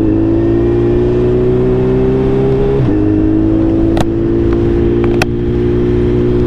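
Suzuki Hayabusa's inline-four engine pulling under gentle acceleration, its pitch climbing slowly, dropping at an upshift about three seconds in and again at about five seconds, then climbing again. Two brief sharp clicks about four and five seconds in.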